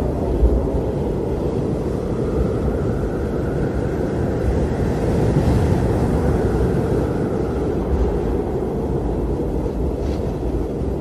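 Steady engine and airflow noise inside a jet airliner cabin in cruise, an even deep rushing without breaks.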